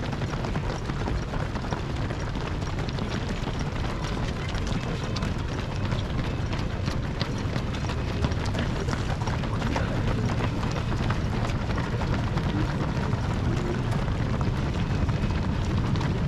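Many running footsteps pattering on a paved road as a dense field of marathon runners passes, over a low wind rumble on the microphone.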